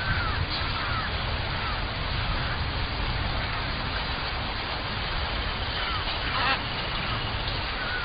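Rainforest ambience: birds giving short, gliding calls every second or so over a steady hiss, with one louder call about six and a half seconds in.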